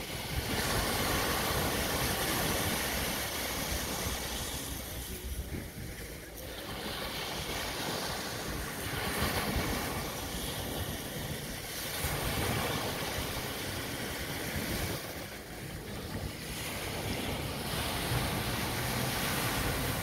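Small sea waves breaking and washing up a sandy beach, the surf swelling and easing every few seconds.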